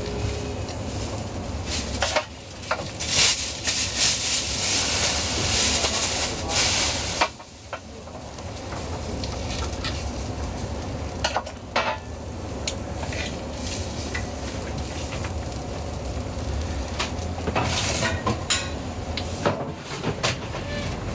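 Food sizzling in hot oil on a griddle, with short scrapes and clinks of metal utensils against the pan. The hiss swells much louder for about five seconds, from roughly two seconds in, then settles back to a steady sizzle.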